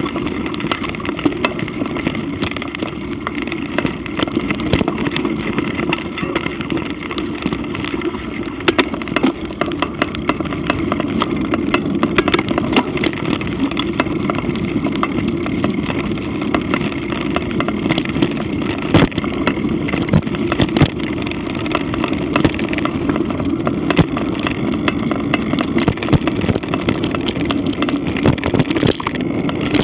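Mountain bike ridden along a dirt singletrack, as heard through a Garmin VIRB action camera's microphone: a steady rumble of tyres and wind with frequent sharp rattles and knocks as the bike jolts over the trail.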